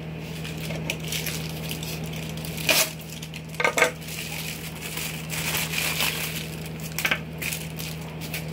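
Packaging handled on a wooden table: a plastic mailer and small parts bag rustling and crinkling, with many small clicks and two sharp clinks about three and four seconds in. A steady low hum runs underneath.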